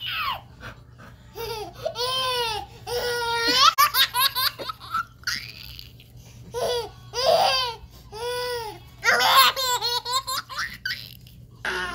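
A baby laughing hard in repeated bursts of high giggles that rise and fall in pitch, set off by a dog licking its face.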